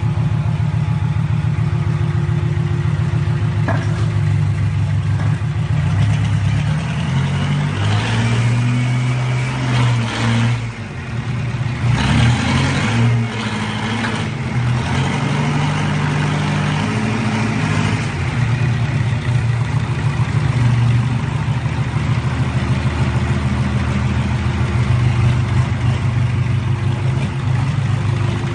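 Model 160 hydraulic waste-paper baler running with a steady, loud motor-and-pump hum. For several seconds around the middle the pitch shifts and the sound turns noisier as the machine's load changes.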